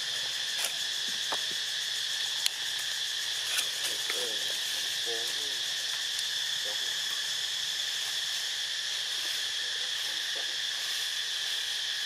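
Steady high-pitched drone of insects, unchanging throughout. A few brief faint calls come about four to five seconds in, and there are a few light clicks.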